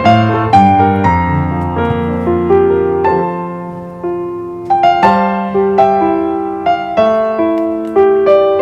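Background piano music: a light melody of separate struck notes with a steady beat.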